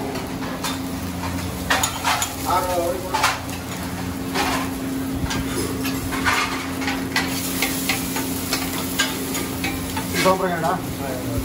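A dosa frying in ghee on a hot griddle, sizzling, with repeated metal scrapes and clinks of a spatula against the pan over a steady low hum.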